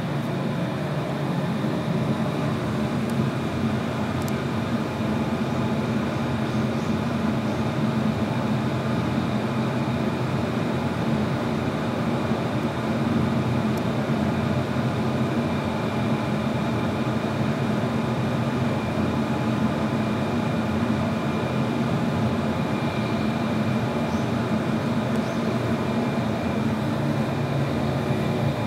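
A steady mechanical hum and whir with several constant tones, running evenly throughout without change.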